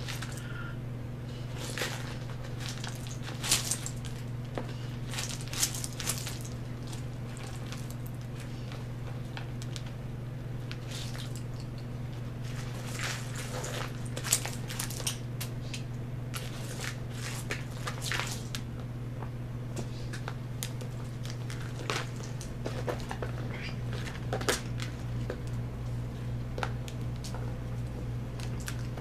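Catalina macaw rummaging through a large plastic bowl of nuts, with nuts and shells clicking and clattering against the bowl and spilling out in irregular bursts. A steady low hum lies underneath.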